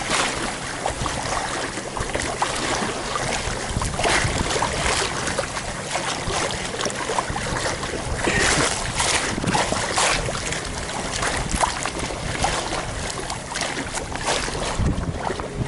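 Water rushing and splashing along the hull of a Catalina 22 sailboat under way, with wind on the microphone.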